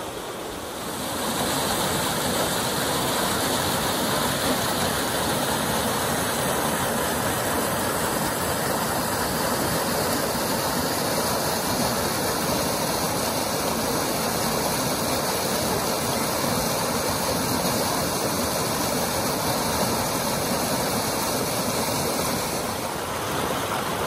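Steady rush of flowing water from a snowmelt mountain creek, coming in about a second in and dropping back near the end.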